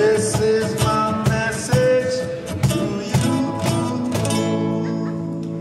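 Live acoustic Latin band: two acoustic guitars strumming over cajon beats, with a singing voice. About four seconds in the beats stop and a final guitar chord rings out and slowly fades, ending the song.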